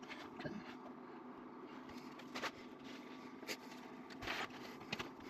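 Faint handling noises: a few light clicks and scrapes a second or so apart, over a low steady hum.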